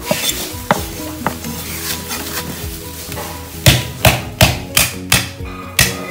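Cleaver chopping a bundle of lemongrass stalks on a thick wooden chopping board. A couple of light knocks come first, then a little past halfway it settles into rapid, even strokes, about three a second.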